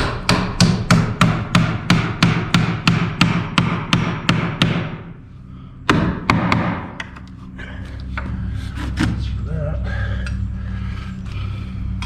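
Hammer driving a nail into wood with about fourteen quick, even blows, roughly three a second, then a pause and one more blow. After that a steady low hum carries on.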